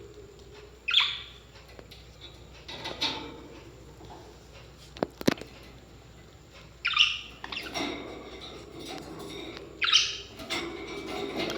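Parrots calling: three loud, short, harsh calls a few seconds apart, each sweeping down in pitch, with softer chatter between. Two sharp clicks sound near the middle.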